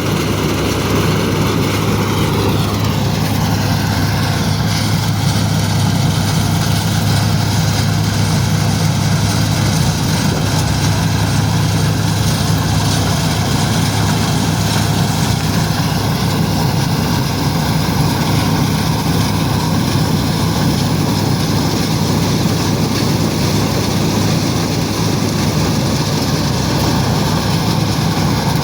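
Mahindra Arjun Novo 605 tractor's diesel engine running steadily under load while harvesting wheat. It is a continuous loud drone whose pitch dips slightly a few seconds in.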